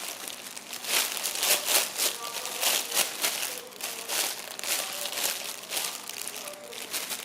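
Plastic wrapping crinkling and rustling as it is handled, in quick irregular crackles.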